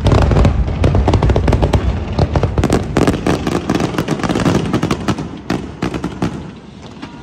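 Fireworks display: a dense barrage of sharp cracks and deep booms from aerial shells bursting, thinning out and fading about six seconds in.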